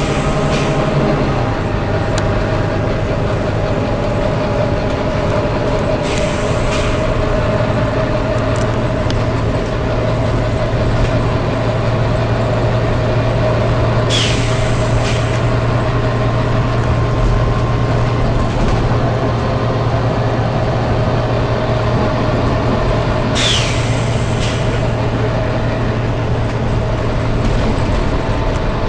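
Volvo B9TL double-decker bus's nine-litre six-cylinder diesel running steadily, its note dropping about a second in, with several short 'tsh' hisses of compressed air from the bus's air system, the loudest about halfway through and about two-thirds of the way through.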